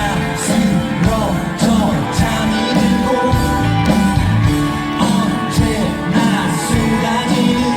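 Live rock band playing a song with a lead vocal over drums and guitar, amplified through the festival PA.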